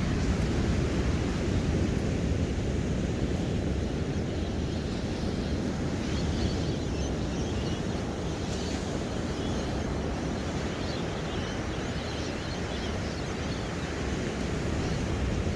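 Ocean surf washing steadily with a heavy low rumble of wind on the microphone, and birds chirping faintly now and then through the middle.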